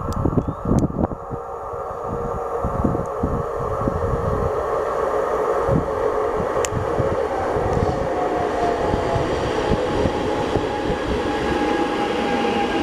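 Electric passenger train approaching along the track and running past the platform. Its rumble builds over the first few seconds and then holds steady, with a thin whine joining in during the second half.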